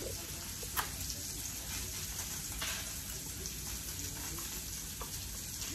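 Food sizzling in a frying pan: a steady hiss with a couple of light clicks, about one second in and again partway through.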